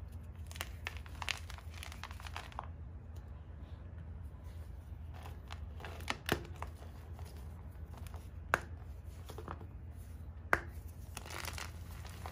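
Hands crushing and crumbling a block of Ader gym chalk (magnesium carbonate) topped with lemon Comet cleanser powder: gritty crunching and crumbling, with three sharp cracks about six, eight and a half and ten and a half seconds in. A low steady hum sits underneath.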